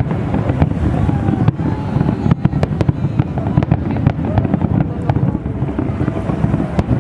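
Fireworks going off in a dense barrage: many sharp, irregular cracks and bangs over a continuous low rumble.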